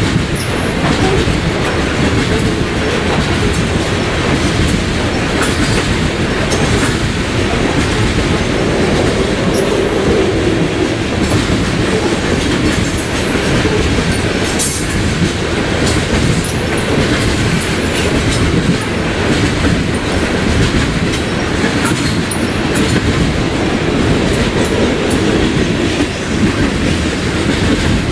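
Coal train hopper cars rolling past on steel rails: a steady, loud rumble of wheels on track, with the clickety-clack of wheels passing over rail joints scattered throughout.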